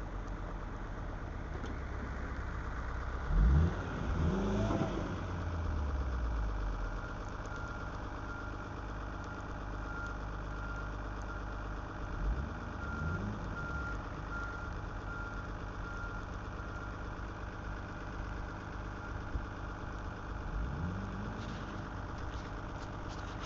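Car engine idling steadily and briefly revved up and back down a few times. The biggest and loudest rev comes about three and a half seconds in. A faint, evenly repeated beep runs through the middle stretch.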